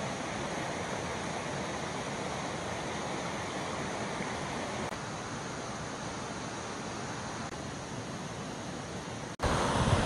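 Mountain stream rushing and splashing over rocks, a steady even rush; it jumps suddenly louder near the end, where the sound is that of a small cascading waterfall.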